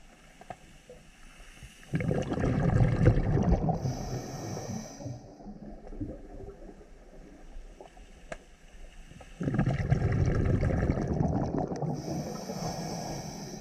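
Scuba diver's exhaled breath bubbling out of the regulator underwater, in two long bursts that start suddenly about two seconds in and again near the end.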